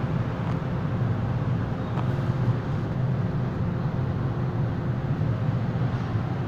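MTR M-Train electric metro train at the platform giving a steady low rumble with a faint thin hum.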